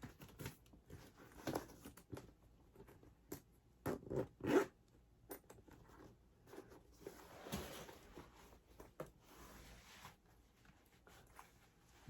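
Zipper on a fur-lined winter boot being pulled in several short strokes, with handling noise as the boot is put on.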